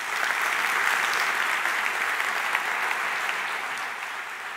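Audience applauding at the end of a talk, tapering off slowly over the last second or so.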